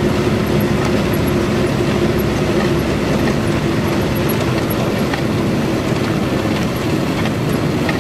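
Truck's diesel engine running steadily under way, with road and tyre noise.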